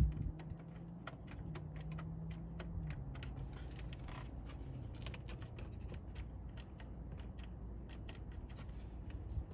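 Many light, irregular clicks and rattles, with a low steady hum that stops about three seconds in.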